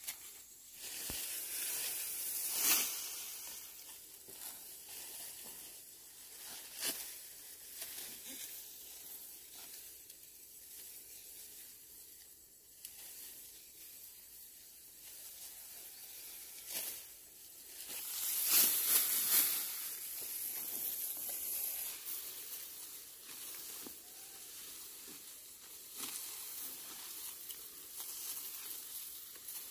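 Dry rustling and crackling, with irregular swishes and a few clicks, louder about two to three seconds in and again around eighteen to twenty seconds.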